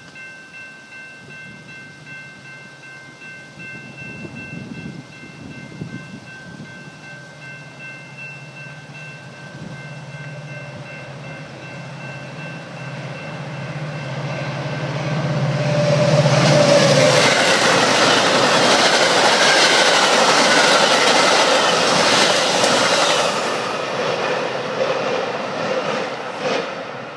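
Metra diesel commuter train running through the station at speed without stopping. A low engine drone grows as it approaches, then a loud rush of wheels and cars on the rails lasts several seconds from about halfway in and fades as the train recedes.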